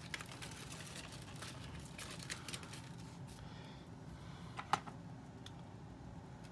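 Faint handling of small plastic doll accessories and their packaging: scattered light clicks and rustles, with one sharper click a little before five seconds in.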